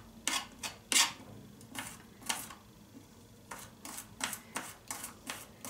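Small kitchen knife chopping garlic on a cutting board: an irregular run of sharp clicks, with a short pause about halfway through.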